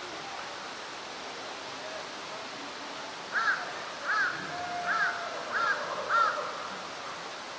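A bird calling five times in quick succession, about a second apart or less, starting a little before halfway through; each call is a short, harsh note that rises and falls in pitch.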